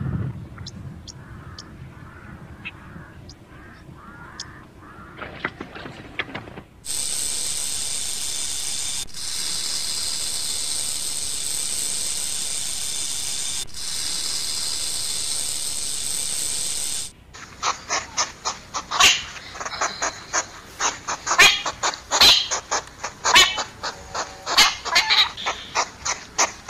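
A snake's long, steady hiss lasting about ten seconds, then a hedgehog snuffling and huffing in quick, irregular puffs.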